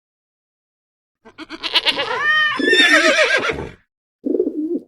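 A farm animal calling: one long call of about two and a half seconds that rises and falls in pitch and turns harsher in its second half, then a shorter, lower call near the end.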